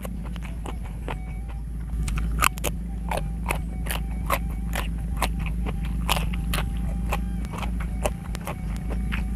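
Close-up crunching and chewing of raw, crisp green vegetables, with sharp crunches about twice a second, over a steady low hum.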